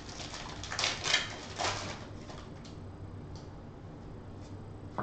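The wrapper of a Contenders football card pack being torn open, crinkling in a few sharp bursts about one to two seconds in, followed by fainter slides and clicks as the cards are pulled out and shuffled in the hands.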